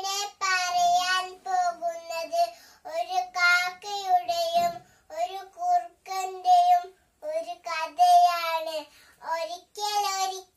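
A young girl singing solo and unaccompanied, in short phrases with held notes and brief pauses for breath between them.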